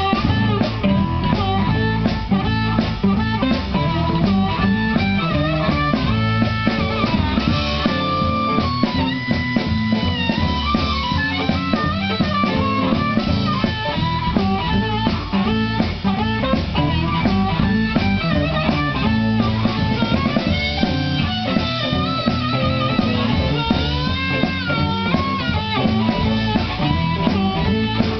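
A blues band playing live: harmonica with held, bending notes over electric guitars and a drum kit, with a steady beat.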